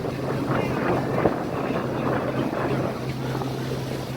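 Boat motor running steadily with a low, even hum, and wind buffeting the microphone.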